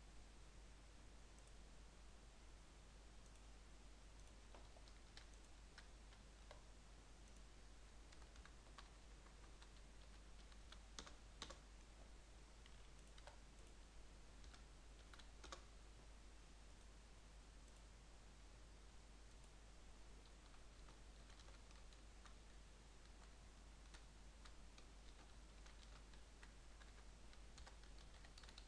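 Faint computer keyboard typing and mouse clicks, scattered and sparse, with a few louder clicks about eleven and fifteen seconds in, over a low steady hum.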